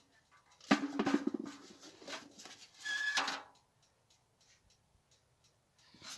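Potatoes knocking against a metal bucket. A sharp ringing clang comes about a second in, with a rattle after it, and a second clatter follows about three seconds in.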